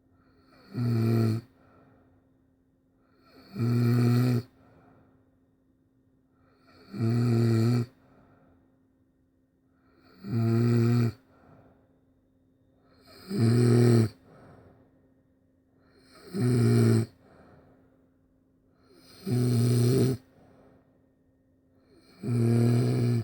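Snoring: eight loud, pitched snores, about one every three seconds, each lasting about a second, with quiet breathing between them.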